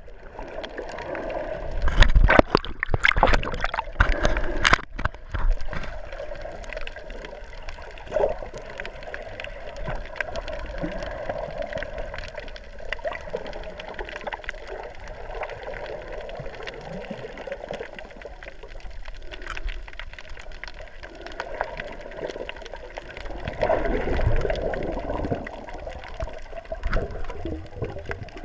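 Underwater ambience picked up by a submerged camera: muffled water movement and gurgling. A cluster of sharp clicks and knocks comes about two to five seconds in.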